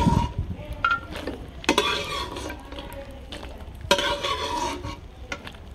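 Cashews frying in desi ghee in a kadhai, sizzling as they are stirred, with three sharp scrapes of the stirrer against the pan. The nuts are being roasted lightly on gentle heat.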